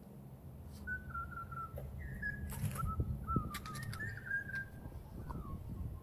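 A run of clear whistled notes, each held fairly steady with small slides between them, starting about a second in and fading out near the end, over a steady low rumble. A few sharp clicks fall in the middle.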